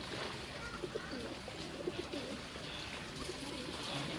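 Pigeons cooing, a run of short low coos repeating over and over.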